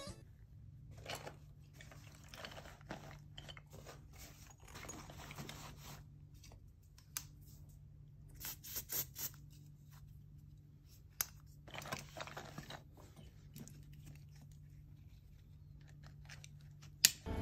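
Faint rustling and soft knocks of clothes being folded and pressed into a suitcase, with a sharp click near the end as the suitcase strap is fastened.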